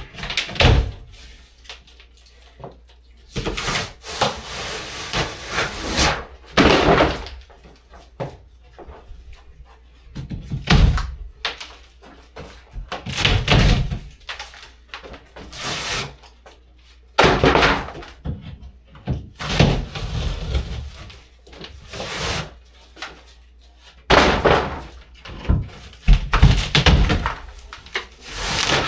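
Interior wall demolition: irregular heavy blows and crashes of wall material breaking and falling, coming every one to three seconds.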